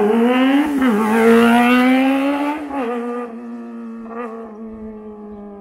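Kawasaki ZX-25R's 250 cc inline-four accelerating hard, its high-pitched note climbing, dipping briefly twice at upshifts and climbing again. About three seconds in it grows fainter at a steady pitch.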